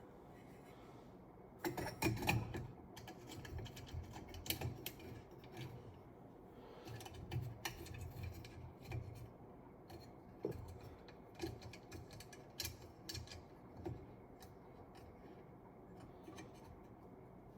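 Glass shade being fitted to a ceiling-fan light kit by hand: scattered small clicks, taps and scrapes of glass against metal fittings, the loudest cluster about two seconds in.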